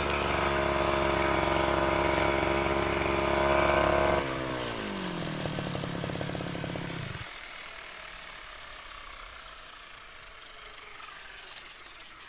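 STIHL FR3001 backpack brushcutter engine running steadily, then shut off about four seconds in; its pitch falls away over about three seconds as it winds down to a stop, leaving only faint hiss.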